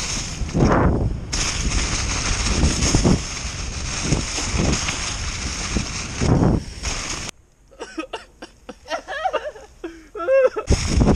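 Mountain bike descending a rough forest trail: wind buffeting the camera microphone and tyres running over leaves and roots, with repeated knocks and rattles from the bike. About seven seconds in this cuts off abruptly to quieter people's voices. Near the end the riding noise starts again.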